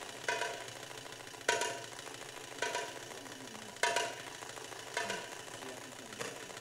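Belly dance drum solo: single sharp drum strikes, about one every second, each ringing out briefly before the next.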